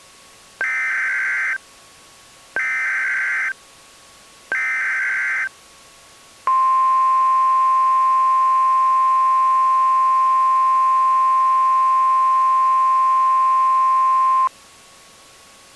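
Emergency Alert System tones on NOAA Weather Radio: three one-second bursts of SAME header data, encoding a Civil Emergency Message, then the 1050 Hz weather radio alert tone held steady for about eight seconds.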